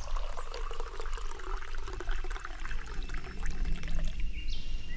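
Liquid being poured: a steady splashing trickle with many small drips and spatters.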